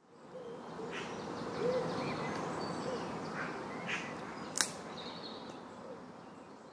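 Background nature ambience: a steady rushing noise with faint bird-like chirps and one sharp click about four and a half seconds in, fading toward the end.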